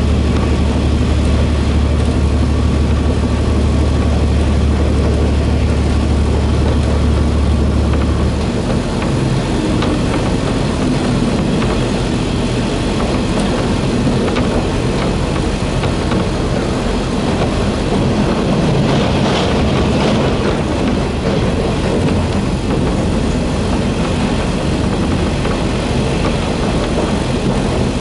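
Diesel railcar running at speed, heard inside the passenger cabin: steady wheel-on-rail rumble and rattle. A deep engine drone drops away about eight seconds in, leaving the running noise.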